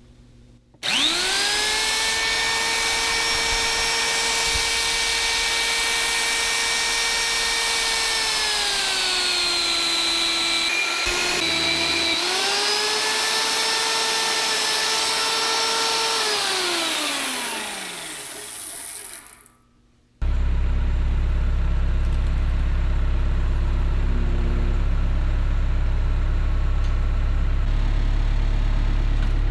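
A motor whines up to a steady high pitch, sags lower for a couple of seconds, then spins down to a stop. After a brief silence an engine starts running with a steady low drone.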